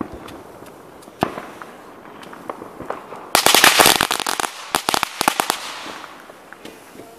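Consumer fireworks going off: a single sharp pop about a second in, then a loud burst of dense crackling about three seconds in, followed by a quick string of sharp pops.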